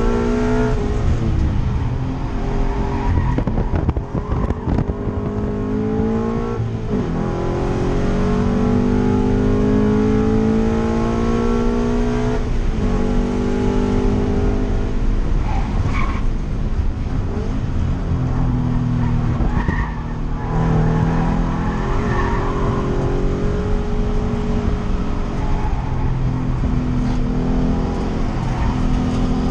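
2013 Scion FR-S's 2.0-litre flat-four engine through a TRD exhaust, heard from inside the cabin while lapping a race track. The revs climb over several seconds, then fall sharply a few times at shifts and braking.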